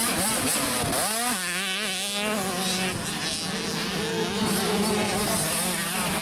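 Two-stroke 65cc motocross bike engines running: one revs up sharply about a second in, its pitch wavering with the throttle, over the steady drone of other bikes on the track.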